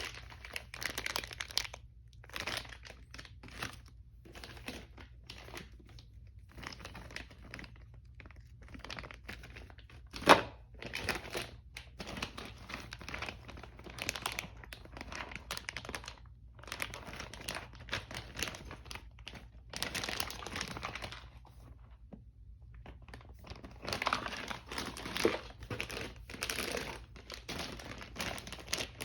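Packaging being handled, crinkling and rustling in irregular spells, with one sharp knock about ten seconds in.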